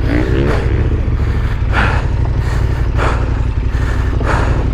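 KTM 1290 Super Adventure S's V-twin engine running steadily at low revs while the bike sits bogged down in deep mud. Short hard breaths come over it about every second.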